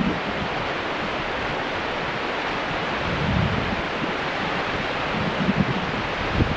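Wind rushing over the microphone of a camera hanging on a line in open air: a steady hiss, with low buffets about three and five and a half seconds in.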